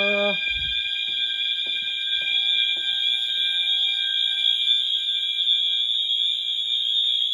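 Fire alarm sounding a continuous, steady high-pitched tone with no breaks. A brief lower tone fades out just after the start, and a few faint knocks sound under the alarm.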